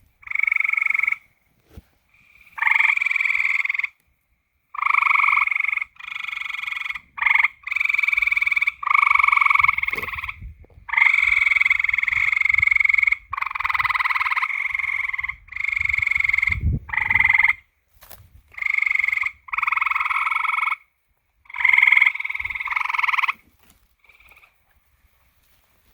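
Frogs calling at night: a run of loud croaking calls, each lasting from about half a second to two seconds, with short pauses between. The calling stops near the end.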